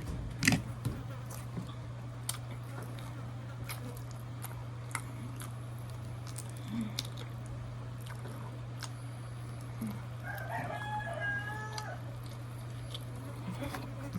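A rooster crows once, about ten seconds in, over scattered small clicks and taps of eating and a steady low hum.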